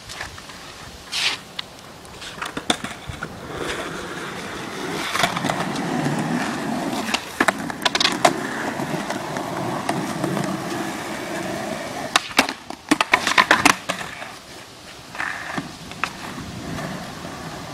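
Skateboard wheels rolling on rough concrete, with a rumble that swells through the middle, and sharp clacks of the board hitting the ground from pops and landings, several in quick succession near the end.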